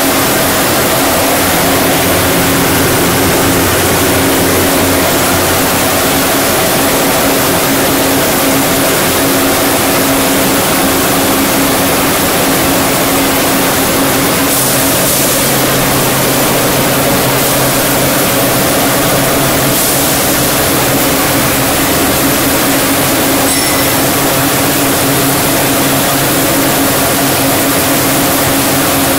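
High-speed plastic mixer running: a loud, steady machine drone with a constant hum from its electric motor and spinning blades, over a rushing hiss as the mixed black plastic granules pour out of the discharge gate.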